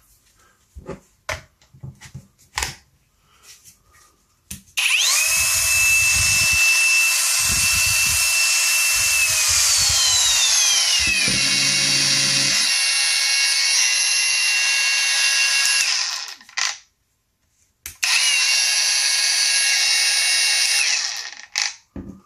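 A cordless brushless 115 mm angle grinder, an INGCO, running with no load, with a high, steady whine. First come a few handling clicks. Then it runs for about eleven seconds, and partway through its pitch slides down. It cuts off and runs again briefly for about three seconds.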